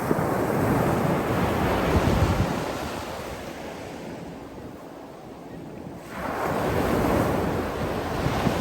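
Sea waves breaking and washing in. One surge of surf fades away over a few seconds, then the next wave comes in suddenly about six seconds in.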